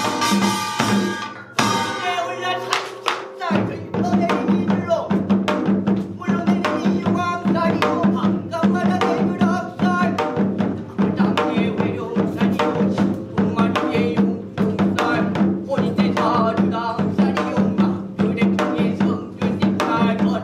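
Binari, a Korean ritual blessing song: a lead singer chants over a steady, even rhythm on Korean drums such as the janggu hourglass drum and the buk barrel drum. The low drumming drops out for a couple of seconds near the start, then resumes.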